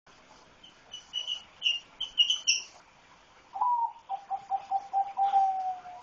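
Rosy-faced lovebirds chirping: a quick run of short, high chirps, then about a second later a lower, pulsing call that slides down slightly at its end.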